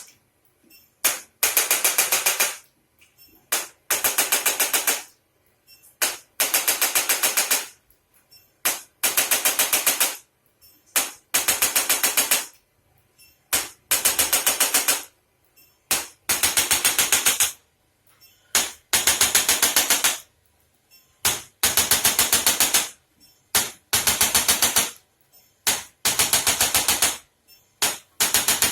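Rapid mechanical tapping in bursts: about a second of sharp taps at roughly eight to ten a second, repeating every two to three seconds, with single taps in between.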